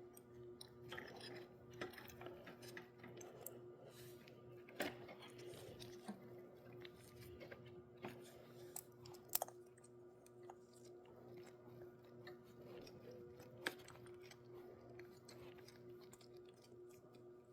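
Near silence: faint scattered clicks and taps of small metal parts being handled as a carburetor fuel solenoid is worked into place, with a few sharper ticks, over a steady faint hum.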